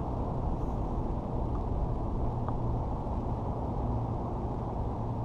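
Steady low wind noise buffeting the camera microphone, with water around a drifting kayak, holding an even level and no distinct knocks or clicks.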